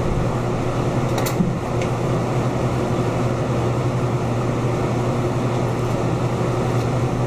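Steady mechanical hum with a rushing air noise, the running of a room ventilation fan; one short click about a second in.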